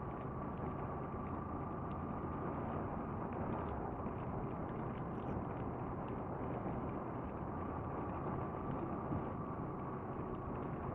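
Honda VFR800Fi's V4 engine running steadily while riding, under a steady rush of wind and road noise.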